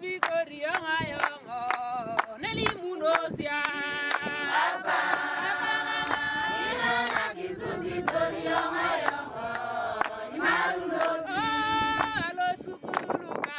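A group of men's and women's voices singing together in chorus, kept in time by sharp claps or beats at about two to three a second.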